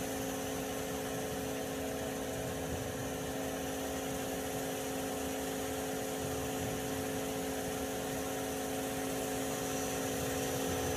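Takisawa EX-108 CNC turning center running under power: an even mechanical hum with several steady tones, holding unchanged throughout.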